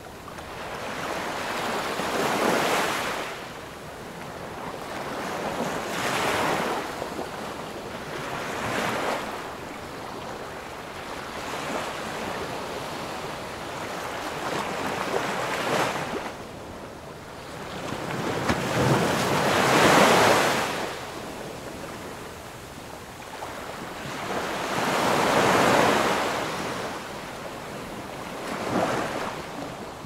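Ocean surf: waves swell and break about every three to five seconds, the largest about twenty seconds in.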